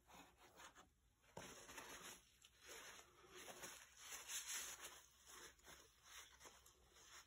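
Faint, irregular rustling and scraping, growing louder and busier after the first second or so.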